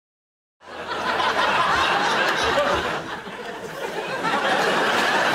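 Studio audience laughing, starting abruptly about half a second in after silence.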